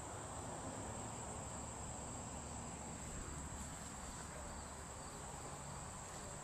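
Steady high-pitched insect chorus, over faint low background noise.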